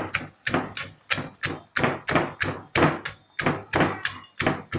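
Wooden pestle pounding in a clay mortar, crushing chillies, garlic and peanut-sesame-honey brittle into a paste. The thuds come steadily, about three a second.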